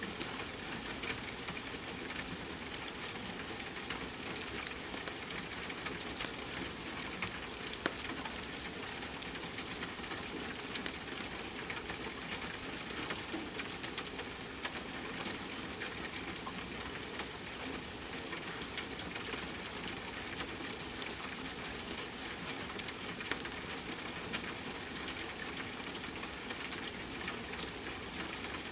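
Steady rain hiss mixed with a fireplace crackling, with a scatter of small ticks and a couple of louder sharp pops, one about a second in and one near the end.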